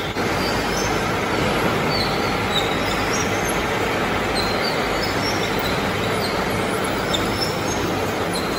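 Electrode drying line's chain conveyor machinery running: a steady mechanical rumble and rattle with short high squeaks scattered through it.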